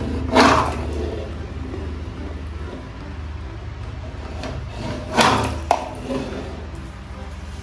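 Plastic toy buses knocked off a wooden tabletop and dropping into a tub of water. There are two loud clattering splashes, about half a second in and about five seconds in, with a few lighter knocks just after the second.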